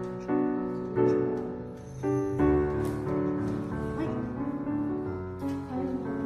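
Background music: held chords that change about once a second.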